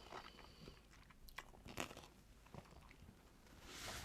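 Faint close-up chewing and biting of fruit coated in Kool-Aid: scattered soft wet crunches and mouth clicks, with a soft hiss building near the end.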